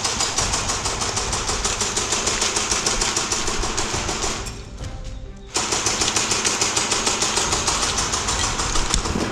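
Airsoft rifle firing on full auto: a rapid, even clatter of shots in two long bursts, with a pause of about a second a little over four seconds in.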